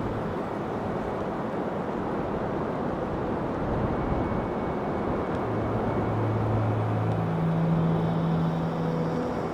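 Blizzard wind blowing hard, a steady rushing rumble, with low held tones underneath from about halfway in.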